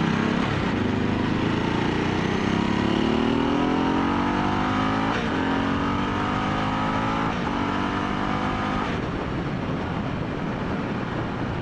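Motorcycle accelerating hard through the gears: the engine pitch climbs, drops at two upshifts and climbs again, then the engine sound gives way to wind rush about nine seconds in as the throttle is eased off.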